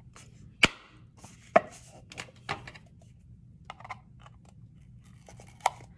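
A pencil point poked through the bottom of a disposable cup, two sharp pops about a second apart, then scissors making scattered small snips to cut a circle out of the cup's bottom.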